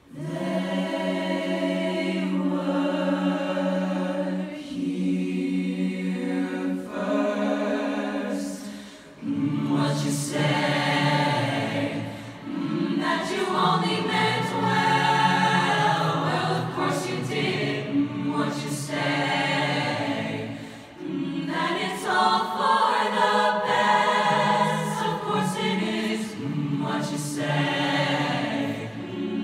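Teenage mixed-voice a cappella group singing into handheld microphones through a PA, with no instruments. The voices come in together after a brief silence and hold sustained chords, with short breaks between phrases.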